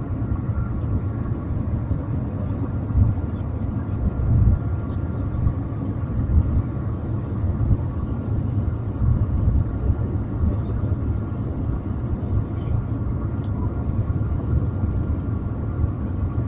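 Steady low rumble inside the cabin of the Shanghai Transrapid maglev train running at its top speed of about 430 km/h, with faint steady tones above it.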